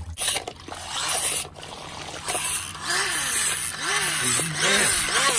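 Paddling-pool water splashing and sloshing as a toy car, then a toy boat, is pushed through it by hand. A run of short rising-and-falling pitched calls sounds over it in the second half.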